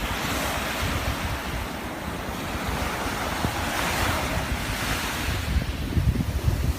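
Ocean surf breaking and washing up the beach, with a swell of hiss about four seconds in. Wind buffets the microphone in low rumbles that grow stronger near the end.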